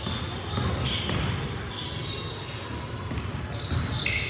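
Basketball game play in a gym: the ball bouncing on the hardwood court and several short, high sneaker squeaks about a second apart.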